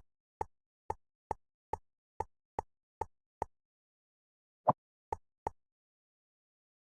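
A run of short, sharp pops, nine of them about every half second, then a pause of about a second and three more. These are the popping clicks of jigsaw pieces being set into place in a cartoon puzzle.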